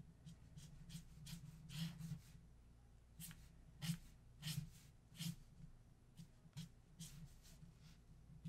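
Posca paint marker tip scratching and dabbing on paper in short, faint strokes, one or two a second at irregular intervals, as highlights are laid onto a marker sketch.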